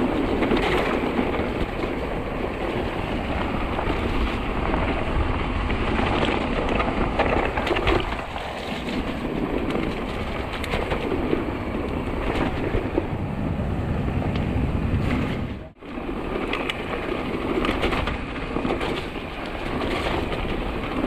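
Mountain bike riding down a trail: tyres rolling over rough ground, the bike rattling and clicking over bumps, and wind rushing over the microphone. The sound cuts out for an instant about three-quarters of the way through.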